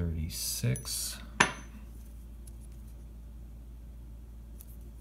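Silver Washington quarters clinking together in the hand as a coin is turned over: one sharp metallic clink about a second and a half in, then a few faint handling ticks and another sharp click at the end.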